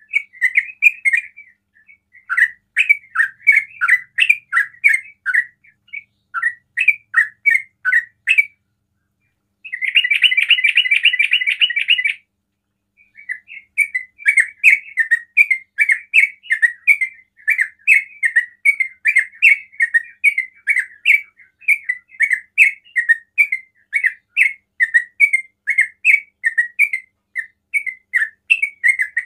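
Yellow-vented bulbul singing its rapid bubbling chatter (the 'ropel' style): bursts of quick chirping notes, a dense fast trill about ten seconds in, then almost unbroken quick chattering to the end.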